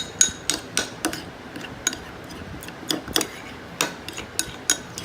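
A spoon or stir stick clicking against a bowl while glue is stirred for slime: sharp, uneven taps about three a second.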